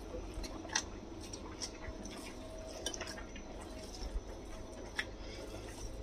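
A bare hand kneading a moist, sticky paste of minced chicken and green peas in a glass bowl: faint, irregular wet squelches and small sticky clicks.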